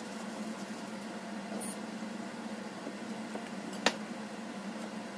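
Steady faint background hiss with one sharp tap on the cutting board about four seconds in.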